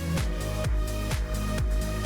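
Electronic dance background music with a steady kick-drum beat.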